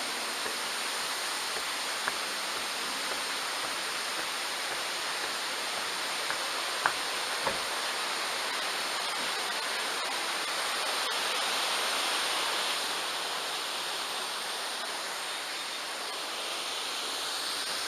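Waterfall rushing: a steady, even roar of falling water, swelling slightly midway, with a few faint clicks in the first half.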